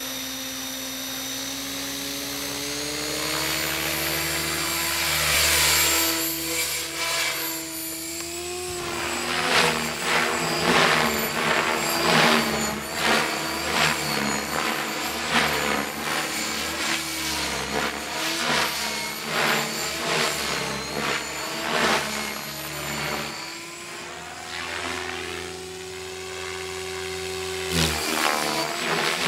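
Gaui Hurricane 550 electric RC helicopter with a Scorpion 4020-910Kv brushless motor: a steady whine of motor, gears and rotor that climbs in pitch a few seconds in as the head spools up. From about nine seconds it comes and goes in rapid pulsing surges of rotor noise as the helicopter is flown around, steadying for a while before surging again near the end.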